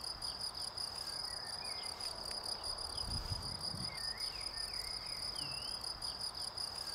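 Cricket stridulating in a steady, continuous high-pitched trill, with short sliding bird chirps now and then.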